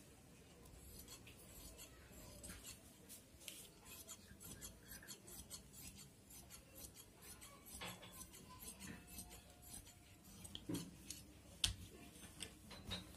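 Faint snipping of large fabric scissors cutting through cloth along a marked line: a run of small blade clicks and the rasp of the cloth, with a sharper click near the end.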